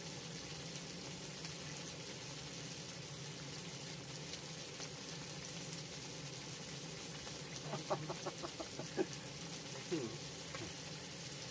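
Chicken clucking in a quick run of about eight short calls nearly eight seconds in, then a short falling call about two seconds later, over a steady frying sizzle.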